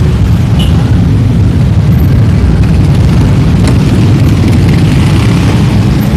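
Road traffic at a busy intersection, a loud, steady low rumble of vehicle engines.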